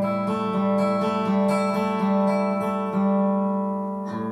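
Acoustic guitar strummed in a steady rhythm, its chords ringing; the playing eases off slightly near the end.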